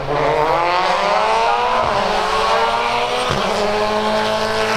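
Hill-climb race car engine at high revs, rising in pitch as it accelerates. There is a sharp break and drop in pitch for an upshift about three seconds in, then it pulls on at a steadier high note.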